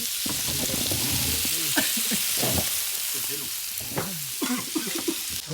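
Food sizzling on a barbecue grill, a steady hiss, with faint voices of people talking under it.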